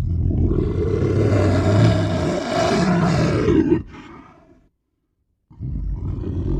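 Kothoga creature roar sound effect: a deep, rough monster roar of about four seconds that trails off and stops. After a second's silence a second roar starts near the end.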